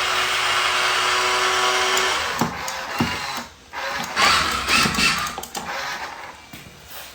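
Small electric motor and plastic gears of a remote-control toy dump truck whirring. It runs steadily for about two seconds, then in short start-stop bursts.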